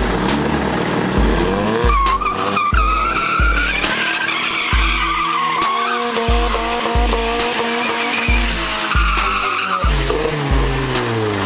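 Mazda MX-5 Miata's engine revving and its rear tyres squealing as it spins them in a smoky burnout. Under it runs background music with a steady bass thump.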